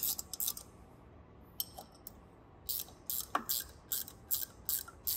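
Ratchet wrench clicking as the follower bolts of a pump's double mechanical seal are snugged down. A few clicks, a pause, then an even run of about three clicks a second, with one duller knock a little past the middle.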